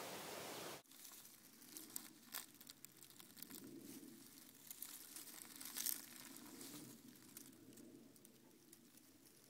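Faint crackling and rustling of dry autumn leaves as a cat rolls about on them, with a few sharper crackles. Before it, a steady outdoor hiss cuts off abruptly under a second in.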